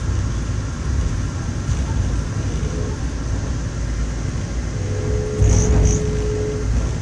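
Steady low rumble of a Via Rail passenger train rolling at speed on the track, heard inside the coach. A faint hum comes and goes, and the rumble swells briefly about five and a half seconds in.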